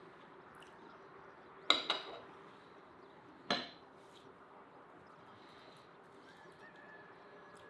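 Metal cutlery clinking against ceramic dinner plates: a quick double clink about two seconds in and a single clink about a second and a half later.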